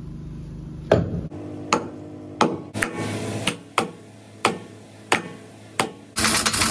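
Heavy hammer blows on a seized steel trailer hub, about nine strikes roughly two-thirds of a second apart, some ringing after the hit. A steady hum cuts out about a second in, and near the end a continuous machine-gun rattle of an impact gun starts.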